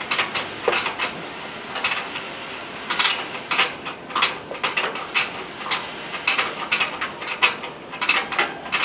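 Irregular metallic clinks and clanks of hand tools and parts against the steel frame of a walk-behind paddy reaper being assembled, about one to three a second.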